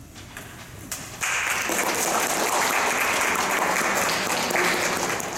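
Audience applauding: a few scattered claps at first, then full applause from about a second in.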